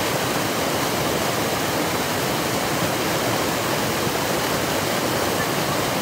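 Small waterfall on a mountain creek, water pouring over a ledge into a pool: a steady rush of white water.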